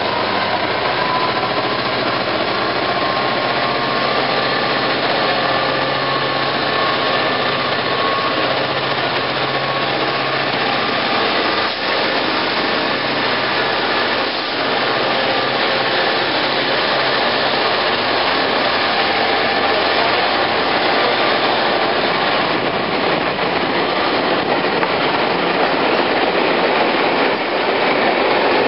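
Class 67 diesel locomotive 67005 pulling a rake of coaches out of the station, its EMD two-stroke V12 engine running under power as it passes close by with a high engine whine that rises slightly at first. In the second half the coaches roll past on the rails.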